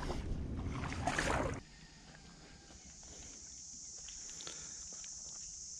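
Shallow seawater sloshing as someone wades through a rocky tide pool. It stops abruptly about a second and a half in, leaving a quiet, steady high-pitched insect drone.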